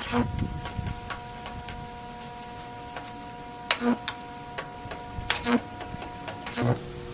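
High-voltage arcing from a microwave-oven-transformer-powered high-voltage pencil at about two thousand volts, sparking onto a phone: irregular sharp snaps and crackles, the loudest about four and five and a half seconds in, over a steady electrical hum.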